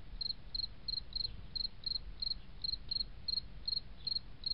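A cricket chirping steadily, a short high chirp about three times a second.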